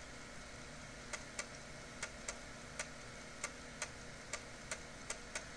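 External USB 3.5-inch floppy drive writing files to a 1.44 MB diskette: a faint steady hum from the spinning disk motor, with irregular clicks of the read/write head stepping across the disk, about two a second.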